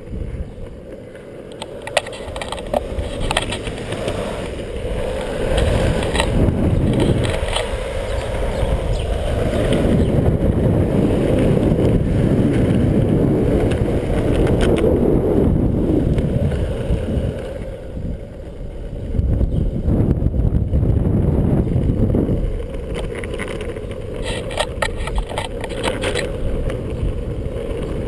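Longboard wheels rolling fast down an asphalt hill, a steady low roar mixed with wind buffeting the microphone, swelling and easing as speed changes. A few sharp clicks come in the first few seconds.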